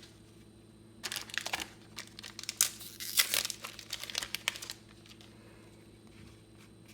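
Trading card booster pack wrapper crinkling and tearing as it is opened, a dense crackle from about a second in until almost five seconds.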